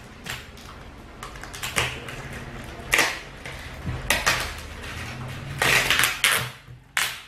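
Scissors snipping and plastic wrapping crinkling as it is cut and peeled off a cardboard box: irregular clicks and short rustling bursts, the loudest near the middle and toward the end.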